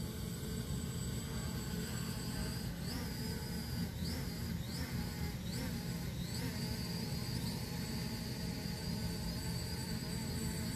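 SG906 Pro quadcopter hovering close by: a steady propeller hum with a thin high whine that rises briefly in pitch several times.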